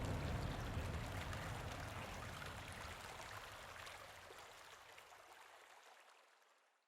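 Steady rushing noise, like running water, fading out gradually to silence by the end.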